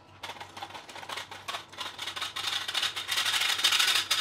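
Flour being sifted through a hand-held sieve onto a wooden table: the sieve is shaken in fast rattling strokes that get louder about two seconds in.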